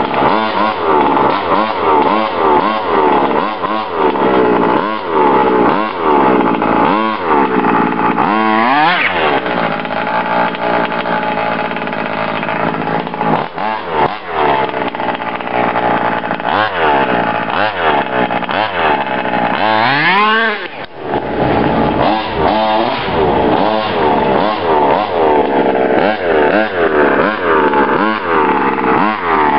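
Freshly rebuilt 30.5 cc two-stroke engine of a Baja 5B large-scale RC buggy, revved up and down over and over, about once a second, held at high revs for a few seconds around a third of the way in, with a hard rev and a brief drop near idle about two-thirds through.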